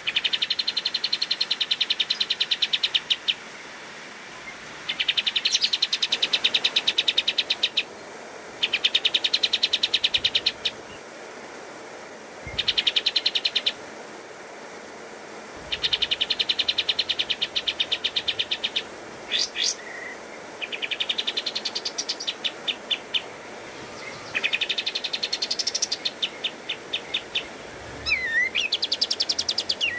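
Kapas tembak bulbul singing its rapid rattling trills, the 'tembakan' prized in training recordings, in bursts of one to three seconds separated by short pauses. Near the end come a few rising and falling whistled notes.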